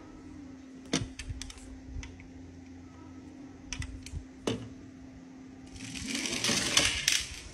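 Light clicks and taps of die-cast toy cars being handled, then about a second and a half of rattling as a toy car's wheels roll over a painted board ramp. A low steady hum runs under the first few seconds.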